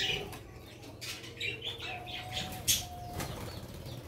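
Wings of small aviary birds flapping in short flurries, with two brief, steady calls near the middle.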